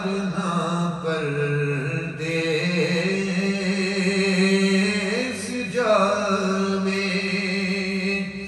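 A solo male voice chanting a devotional naat melodically, drawing out long held notes over a steady low drone. The phrase trails off near the end.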